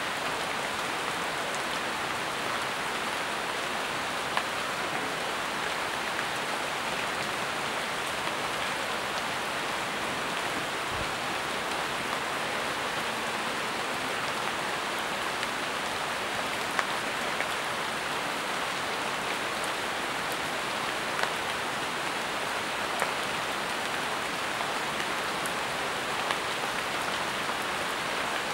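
Steady rain falling on jungle foliage, an even hiss of drops. A few sharper single drip taps stand out now and then.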